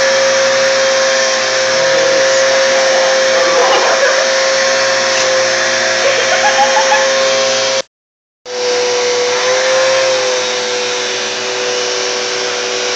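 Vacuum cleaner running steadily with a constant whine, sucking the air out of a large plastic bag that encloses a person. The sound cuts out completely for about half a second just past the middle, then resumes a little lower in pitch.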